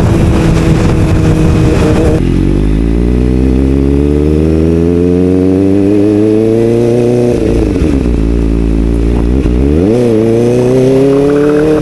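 Motorcycle engine under way, its pitch climbing steadily for about five seconds, then falling and climbing again twice near the end. Wind noise on the microphone covers the first two seconds, then stops abruptly.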